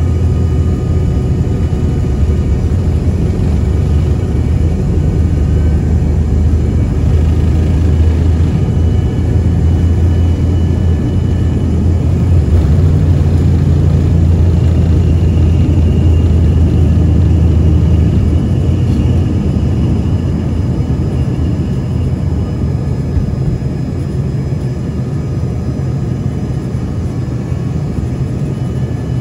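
Cabin noise of an Embraer ERJ-145 during its takeoff roll, liftoff and initial climb. The twin rear-mounted Rolls-Royce AE 3007 turbofans run at takeoff thrust as a loud, steady low rumble. It is loudest around the middle and eases off slightly near the end as the jet climbs away.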